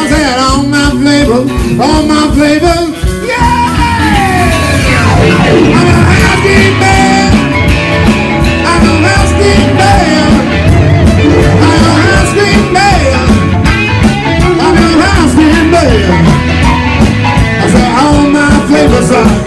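Live blues-rock band playing: electric guitar, electric bass, drum kit and Yamaha keyboard together, with a long downward pitch slide about four seconds in.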